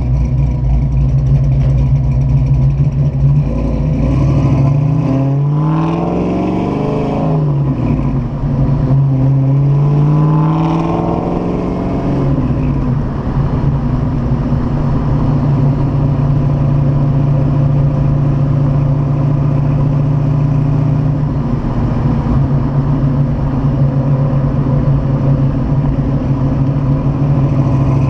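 Freshly built Ford small-block V8 (a 5.0 bored .060 over to 311 ci, with a Comp XE274HR cam and an off-road H-pipe exhaust) running as the car drives during engine break-in. The revs rise, fall back and rise again over the first dozen seconds or so, then the engine settles into a steady cruise.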